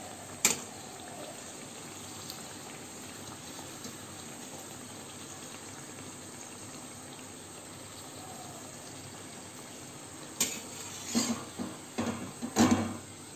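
Oil sizzling steadily around a folded dough pastry deep-frying on a low flame. There is one sharp click about half a second in, and a run of metal spatula scrapes and knocks against the kadai in the last three seconds.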